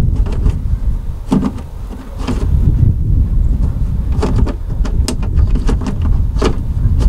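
Light plastic clicks and knocks, several spread out, as replacement mirror glass is worked onto the side-mirror housing of a Volvo VNL truck, over a steady low rumble.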